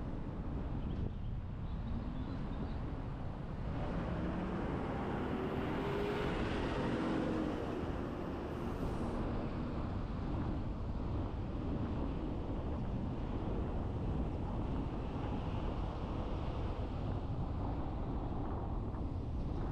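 Car driving on the road: steady road and tyre noise with engine hum. A louder swell with a tone that rises and falls comes about five to nine seconds in.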